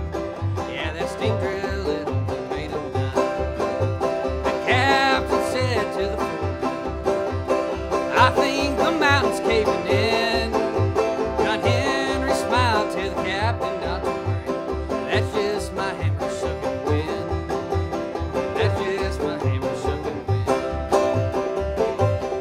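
Instrumental break of an old-time tune played on banjo and strummed acoustic guitar, with a steady plucked bass line from a washtub bass underneath.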